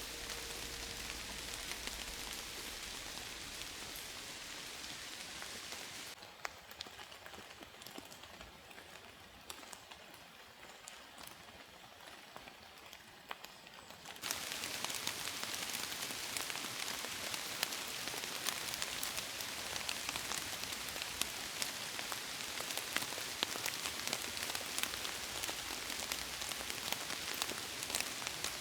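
Rain falling steadily, with many separate drops ticking close by. About six seconds in, it drops to a quieter level for roughly eight seconds, then comes back louder and stays so.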